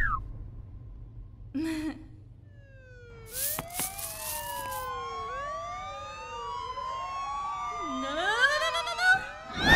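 Several police sirens wailing at once, their rising and falling tones overlapping and gradually getting louder, with more joining near the end.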